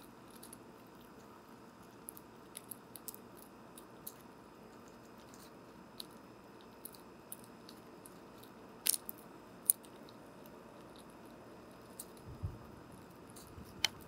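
Close-miked squirrel eating at a bird feeder: scattered sharp crunches and clicks of chewing, with two louder cracks about nine seconds in, over a steady hiss. A soft low thump comes near the end.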